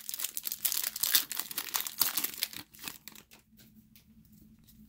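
Plastic wrapper of a 2010 Score football card pack crinkling as it is torn open by hand, with rapid crackles that die down about three seconds in.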